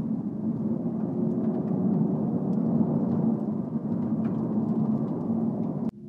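Volkswagen Mk8 Golf GTI's turbocharged 2.0-litre four-cylinder engine and exhaust droning steadily under way, heard from inside the cabin. The sound drops off abruptly just before the end.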